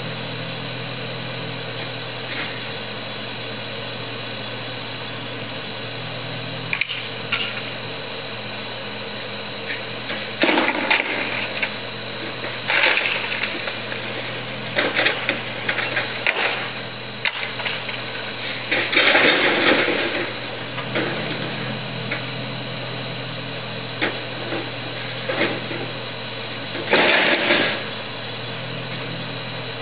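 A steady low mechanical hum with a thin high whine, broken every few seconds by short irregular bursts of noise, the longest about two thirds of the way in.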